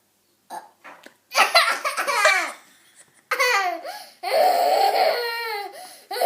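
A young child laughing in three high-pitched bouts, the last one the longest.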